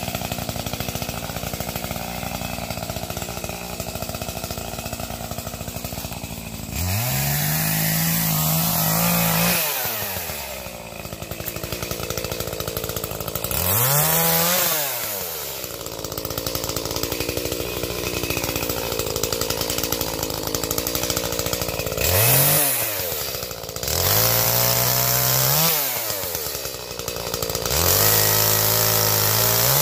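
Gas chainsaw idling, then throttled up five times while cutting firewood. Each time the engine pitch rises, holds high for one to three seconds, then drops back to idle.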